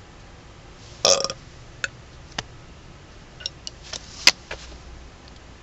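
A man burping: one short, loud burp about a second in, followed by a scatter of sharp clicks, the loudest a little past four seconds.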